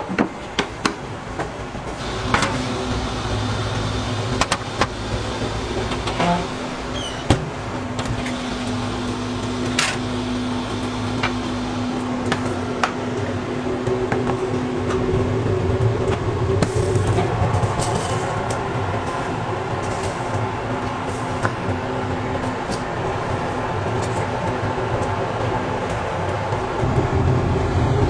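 Steady hum of kitchen machinery with occasional sharp clinks and knocks of metal baking pans being handled, the clinks mostly in the first third.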